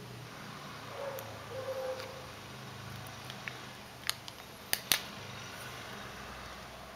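Protective plastic film being handled and peeled off a new iPhone 3G: a few sharp crackles and clicks about four to five seconds in, the last the loudest, over a low steady hum. A short faint tone sounds about a second in.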